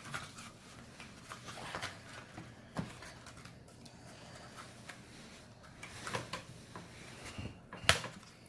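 Faint rustling and scattered clicks of a Pokémon card pack and its cards being handled and opened, with one sharp click near the end.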